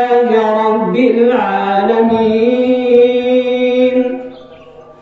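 A solo male voice chanting Quranic recitation in Arabic, slow and melodic, with long held notes. The phrase trails off about four seconds in.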